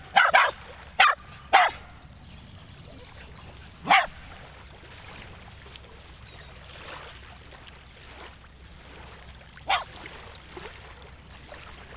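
Shetland sheepdog barking: four short, sharp barks in quick succession in the first two seconds, then a single bark about four seconds in and another near ten seconds.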